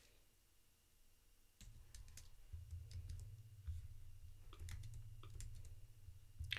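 Faint, scattered clicks of computer keyboard keys and a mouse, a few at a time, over a low hum that comes in about a second and a half in.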